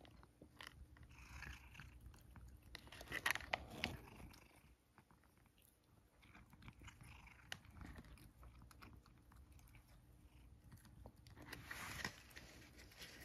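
A cat chewing and crunching small dry treats taken from a hand, faint irregular crunches and clicks.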